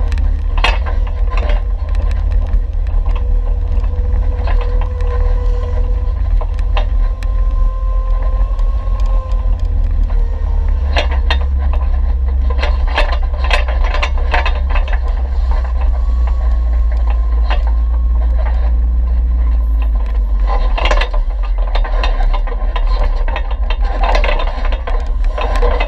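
Off-road vehicle driving slowly down a rough, rocky dirt trail, heard through a vehicle-mounted camera: a steady low rumble with a faint whine, and frequent rattles and knocks from the bumpy ground, busiest about halfway through and again near the end.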